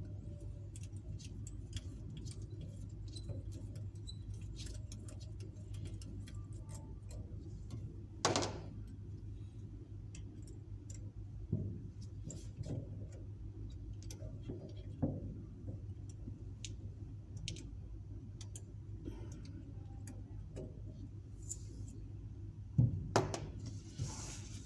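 Small metal clicks and clinks of screws and hand tools on a fiber laser cutting head being taken apart, with a few louder knocks, over a steady low hum.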